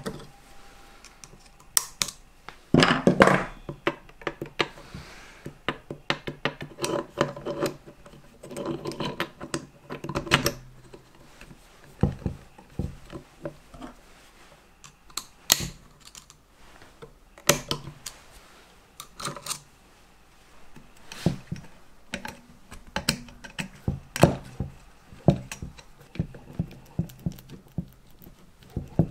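Small metal engine parts and hand tools clicking, clinking and scraping in irregular taps and short rattles, with a louder rattle about three seconds in.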